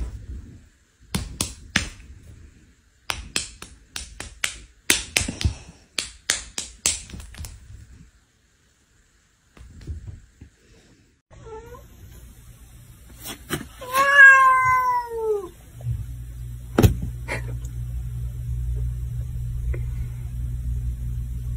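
Domestic cat meowing: a short call, then one long, loud meow that rises and falls in pitch. Before it comes a quick run of sharp clicks or taps; after it, a steady low hum with a single knock.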